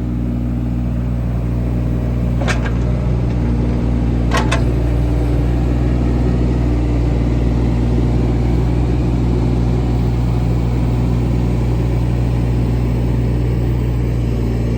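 2005 John Deere 17ZTS mini excavator's small Isuzu diesel engine running steadily as the machine is worked. Two brief sharp sounds come about two and a half and four and a half seconds in.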